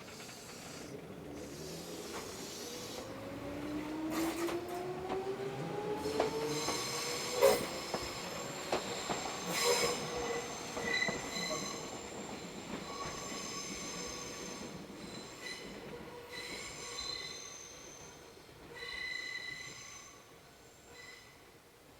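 Meitetsu train's wheels squealing through the sharp Inuyama curve on the Hiromi Line: a shrill flange squeal of several high tones that swells and fades. It is preceded by a rising whine and has a couple of sharp clicks about a third of the way in. The squeal dies away near the end.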